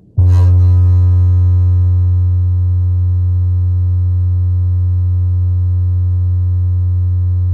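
Fender bass amplifier playing one low, steady bass tone through its upturned speaker, starting with a click a moment in and holding without change.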